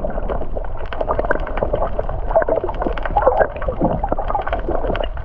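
Muffled underwater gurgling and sloshing water, heard through a camera held under the surface, with many small clicks and knocks.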